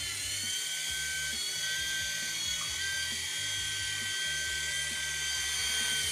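Small electric rotor motors of a 3.5-channel toy RC helicopter whining steadily as it flies, the pitch dipping slightly with throttle changes at the start and near the end.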